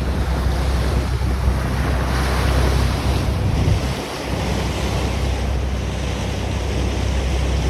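Wind rushing over the microphone and water noise aboard a Grand Banks 36 trawler cruising at about 9 mph, over a steady low drone from the boat's engine. The low drone dips briefly about four seconds in.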